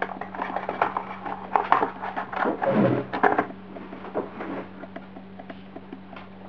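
Packaging being opened and handled by hand: a busy run of rustling, crinkling and clicks for about three and a half seconds, then a few fainter taps.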